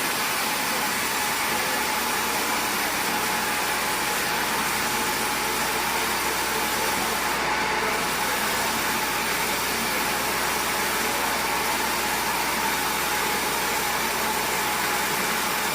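Sawmill machinery running steadily: an even mechanical noise with a faint constant hum, unchanging in loudness throughout.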